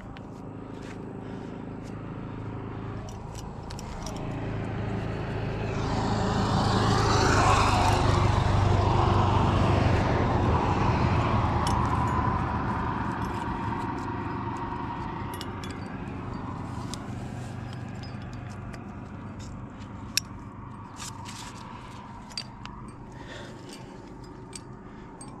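A motor vehicle passing on the road below the cliff: its engine and tyres swell over about six seconds, stay loud for several seconds, then fade slowly. Near the end come a few small sharp clicks, one louder than the rest about twenty seconds in.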